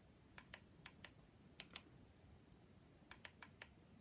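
Faint, irregular clicks of keys or buttons being pressed: several in the first two seconds, a pause, then a quick run of four near the end.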